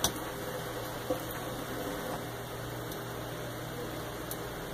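Two small clicks about a second apart, from a screwdriver and screws being worked on a 3D printer's mount, over a steady low hum.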